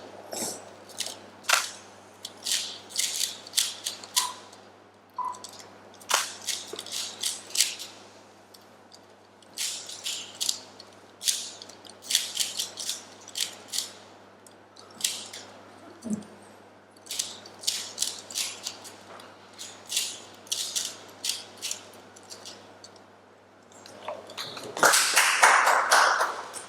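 Runs of quick, sharp clicking in short clusters, with a louder, denser burst of noise near the end.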